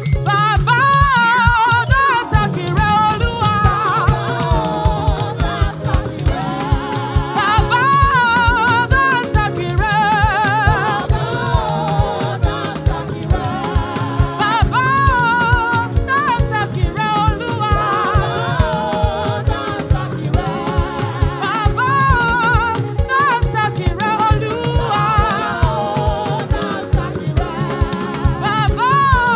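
Gospel praise music: a choir singing over a live band with a steady, fast drum beat.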